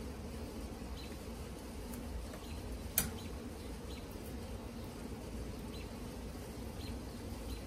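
Honey bees buzzing around an open hive during a frame inspection, a steady hum. One sharp click sounds about three seconds in.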